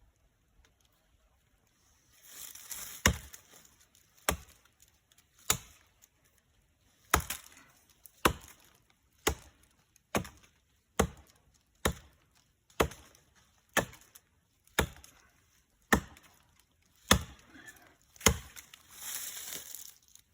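Axe chopping into a tree's wood: about fifteen sharp strikes, roughly one a second.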